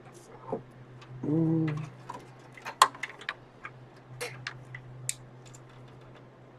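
Scattered sharp clicks and snaps of plastic parts and cables being cut and pulled inside an old desktop PC case, the loudest a little under three seconds in, over a steady low fan hum. A short hummed vocal sound comes about a second in.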